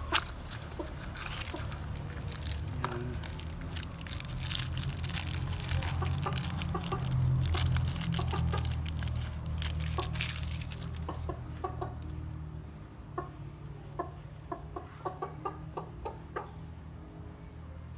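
Chickens clucking, with a low rumble that swells toward the middle and fades by about two-thirds of the way through. Many sharp clicks and rattles come in the first half.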